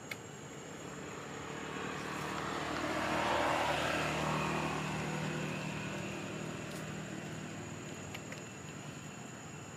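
A motor vehicle passing by: its engine and road noise swell over about three seconds, peak, then fade away slowly.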